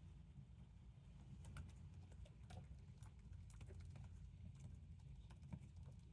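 Faint, irregular keyboard typing: scattered soft key clicks over a low steady room hum.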